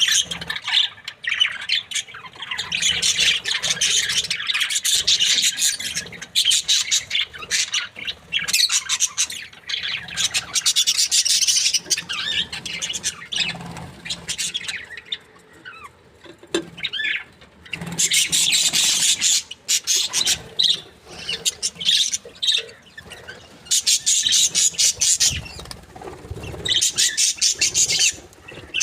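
Budgerigars chattering and chirping in a dense stream of rapid, high-pitched calls that thins out briefly about halfway through.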